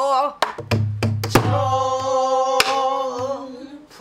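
A woman singing a pansori danga with a buk barrel drum struck by a stick: a quick run of sharp clicks and deep drum thumps in the first second and a half, then a long held sung note with a couple of single drum strokes under it.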